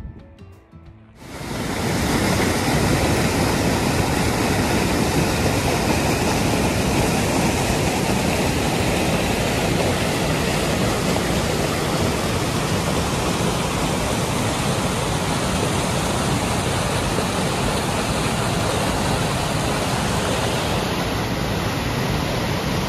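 Mountain creek rushing in white water down a cascade over granite boulders: a loud, steady rush of water that comes in suddenly about a second in.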